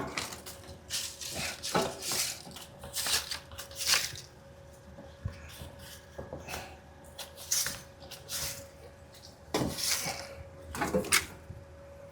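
Broom sweeping debris and metal dust across the shop floor: irregular scratchy strokes about once a second, with a faint steady hum underneath.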